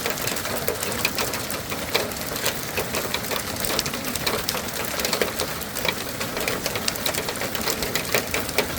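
Hail pelting down: a dense, irregular clatter of sharp ticks that holds steady throughout.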